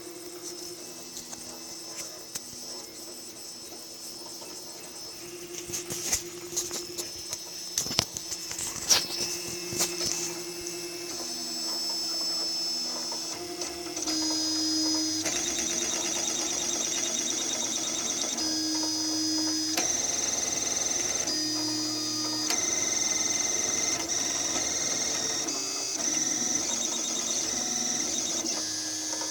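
3D printer running a print: its stepper motors whine in steady tones that jump to new pitches every second or two as the head changes moves. A cluster of clicks comes about a third of the way in, and the motors get louder about halfway through.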